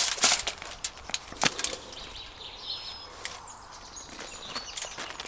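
Sheet of aluminium foil crinkling in a few short crackles as it is handled and pressed over a plate, then faint high bird chirps in the background.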